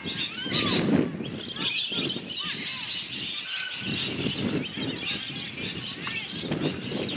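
Spectators and players shouting and calling out across an open field during play, many voices overlapping in short, rising and falling calls.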